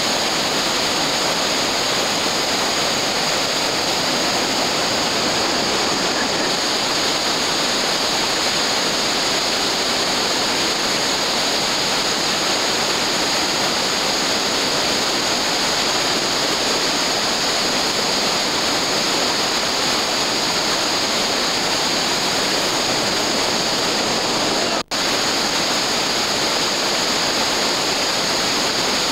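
River rapids rushing: a steady, even roar of whitewater tumbling over boulders. The sound drops out for an instant about 25 seconds in.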